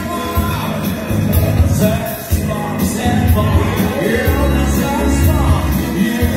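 A woman singing karaoke into a microphone over a loud pop backing track with a heavy bass beat, both played through loudspeakers.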